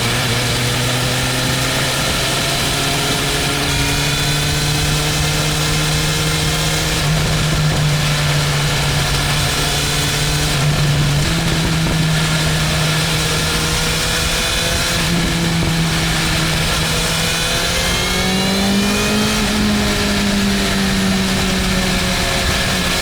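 BMW M1000R's inline-four engine running at steady road revs with wind and road noise. The revs edge up a few times and climb about 18 seconds in, then hold higher.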